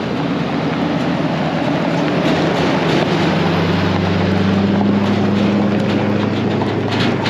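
Heavy-duty pickup towing a loaded gooseneck flatbed trailer at low speed on a gravel driveway: the engine hum grows louder a few seconds in as the truck passes close by, over steady noise from tyres on gravel.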